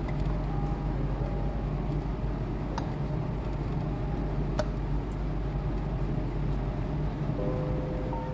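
Steady low hum of the lab's air handling, with a couple of faint clicks around the middle. Faint background music comes back near the end.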